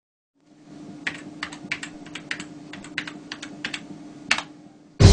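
Typing on a computer keyboard: a quick, uneven run of key clicks for about three seconds, ending with one louder keystroke, over a faint steady hum.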